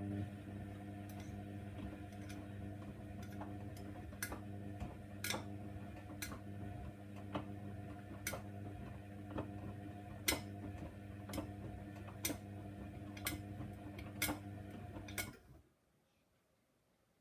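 Hoover Nextra washer dryer's drum motor humming as the drum turns during the wash, with a sharp click about once a second as the load tumbles. The motor stops near the end.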